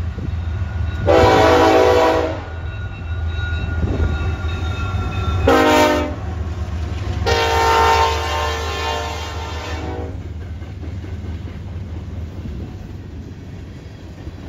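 A Canadian National freight train's diesel locomotive horn sounds a long blast about a second in, a short one near the middle, and another long one ending about ten seconds in. Beneath it run the low rumble of the lead locomotives passing and then the freight cars rolling by.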